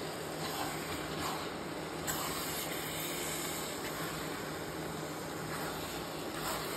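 Grated carrots cooking down in ghee in a kadhai, with the milk dried off: a steady hiss and sizzle, and a few soft stirring scrapes.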